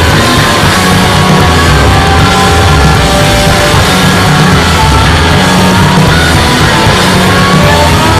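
Loud rock music with a heavy low end and sustained held notes, cutting off abruptly at the end.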